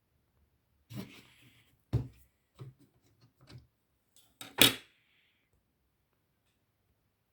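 Knocks and clicks of a Siemens S7-1200 PLC and tools being handled on a bench: six short, sharp hits spread over about four seconds, the loudest a little past the middle.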